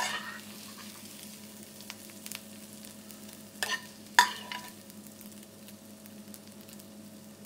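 Metal spoon clinking against a pan and a ceramic bowl while sautéed potato cubes are spooned out: a sharp clink at the start and two more close together about four seconds in, each with a brief ring, over a steady low hum.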